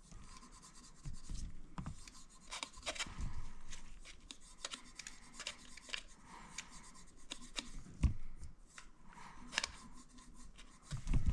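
Cotton swabs soaked in brake cleaner scrubbing carbon and fuel deposits out of an Aprilia Tuono V4's intake port: irregular rubbing and scratching with small ticks, and a couple of light knocks in the second half.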